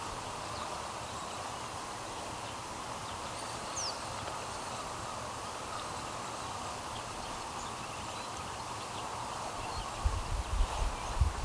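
Steady riverside outdoor ambience: an even hiss with a faint high descending bird chirp about four seconds in. Near the end come several low thumps and rumbles.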